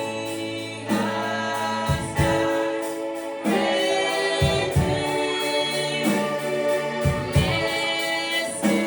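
Gospel worship song sung by a group of voices over a band accompaniment, with a steady bass line and drum hits.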